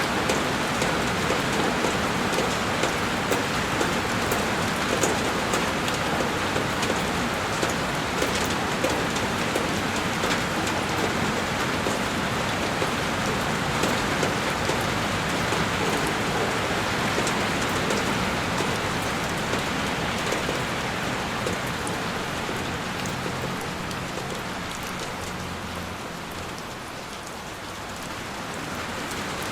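Heavy rain pattering on a window pane, a dense steady wash with scattered drop ticks, easing slightly for a few seconds near the end before building again.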